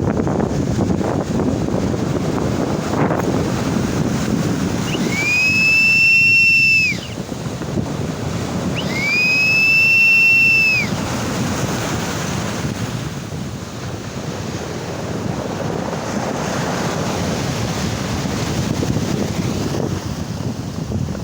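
Waves and wind buffeting the microphone, with two loud, long high whistles. Each whistle lasts about two seconds, rises quickly at its start, then holds one pitch. The first comes about five seconds in and the second about four seconds later.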